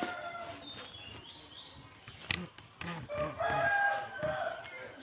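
A bird's loud, drawn-out call a little over three seconds in, with a sharp click just before it.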